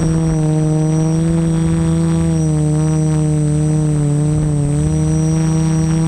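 Multicopter drone's motors and propellers buzzing in flight, heard from the onboard camera: a steady, loud buzz whose pitch wavers slightly as the motors adjust, with a faint high whine above it.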